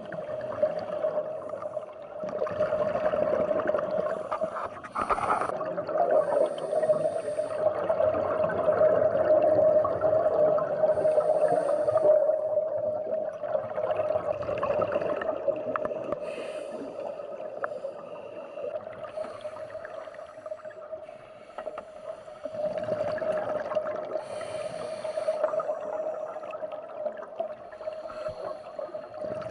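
Scuba breathing recorded underwater: exhaled bubbles from a diver's regulator gurgle out in long surges every several seconds, over a steady tone.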